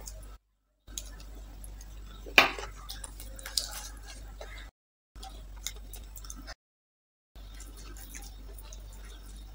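Close-up eating sounds: wet chewing and mouth clicks, and fingers squishing curry-soaked rice on a banana leaf. A sharp click about two and a half seconds in is the loudest sound, and the sound cuts out briefly twice.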